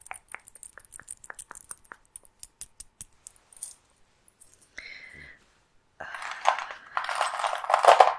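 Small metal earrings clicking and clinking lightly right at the microphone, a quick run of tiny clicks over the first few seconds. From about six seconds in, a louder continuous rustling handling noise takes over.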